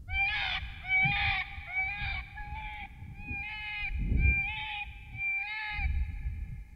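A predator call sounding a rapid series of short, bleating cries, about one every 0.7 seconds, over a low rumbling noise.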